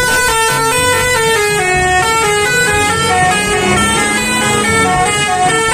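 Multi-tone 'telolet' bus horn playing a quick melody of short steady notes that step up and down, over background music.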